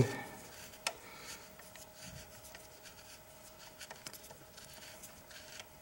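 A socket on a 12 mm oil drain bolt, turned by hand to unscrew it from a motorcycle engine, making faint rubbing and small metal ticks, with one sharper click just under a second in. A faint steady hum runs underneath.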